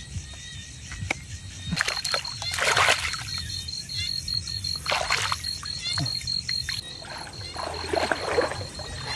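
Water splashing and sloshing in several bursts: about two seconds in, around five seconds, and again near the end, over a steady high-pitched tone.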